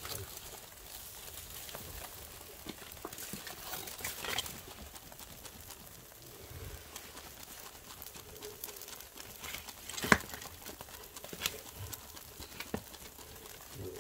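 Salted mackerel grilling over a wood fire, its fat spitting and crackling in scattered sharp pops over a faint steady hiss; the loudest pop comes about ten seconds in.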